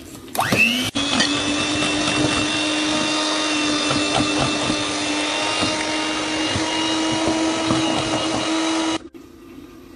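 Electric hand mixer with twin beaters whisking milk into beaten egg yolks and sugar: the motor spins up with a quick rising whine, runs at a steady pitch, and cuts off about nine seconds in.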